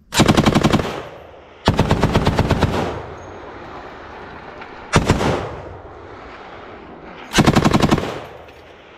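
M240B machine gun firing four short bursts of automatic fire, at roughly a dozen rounds a second. The first two bursts last about a second each and the last two are shorter. An echo trails off after each burst.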